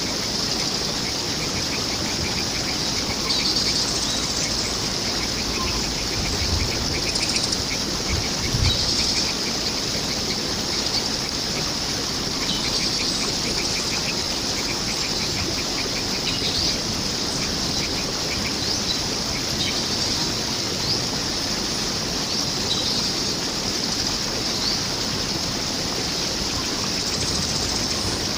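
Steady rush of running water, with wild birds chirping now and then over it and a quick run of ticking calls a few seconds in.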